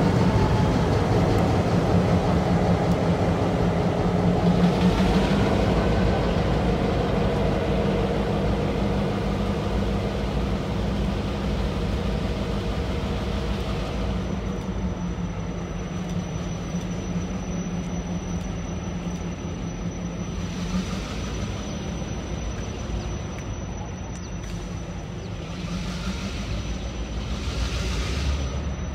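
Leased GMTX diesel-electric locomotives running as they pull away down the track, their engines' steady low drone slowly fading.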